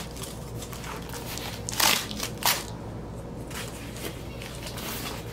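Cardboard record mailer being torn open and handled: low crackling of cardboard, with two short, loud rasps of tearing cardboard about two seconds in.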